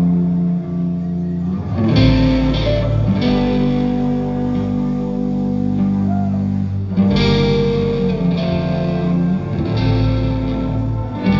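Live rock band playing: sustained electric guitar chords run through effects, changing every couple of seconds, with a heavy low end coming in about two seconds in.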